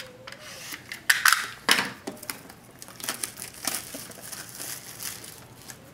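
Crinkly plastic wrapping being crumpled and handled, a burst of loud crackling about a second in, then lighter crackling and clicks, as a sealed sports card box or pack is opened.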